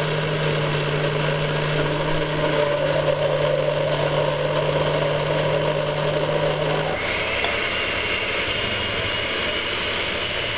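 Countertop blender motor running steadily, pureeing a full jar of roasted pumpkin soup. About seven seconds in its tone shifts to a higher whine.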